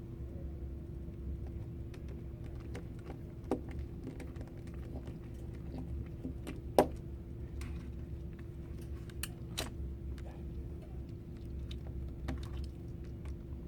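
Scattered small clicks and taps of hands and a small screwdriver working on a Chromebook's screen and plastic casing, the sharpest click about seven seconds in, over a steady low hum.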